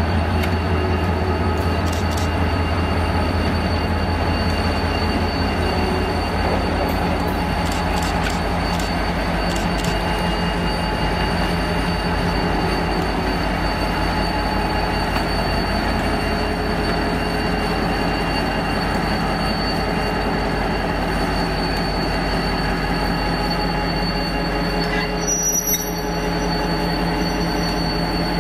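V/Line A class diesel-electric locomotive running at low speed while shunting, its EMD two-stroke diesel engine giving a steady, deep hum. The low note eases about ten seconds in, with a few faint clicks along the way.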